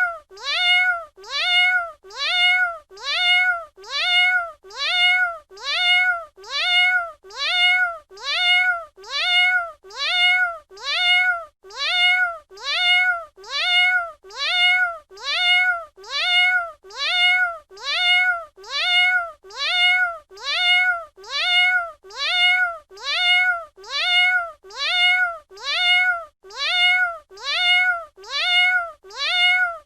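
A domestic cat's meow, the same call repeated over and over about once a second. Each meow rises and then falls in pitch.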